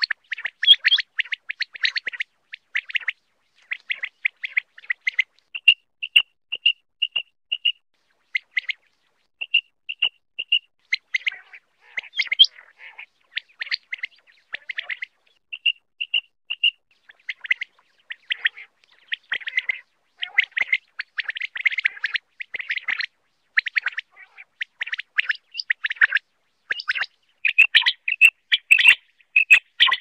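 Common quail calling: a continuous run of short, high chirping notes, some packed into quick clusters and some as evenly spaced single notes about twice a second.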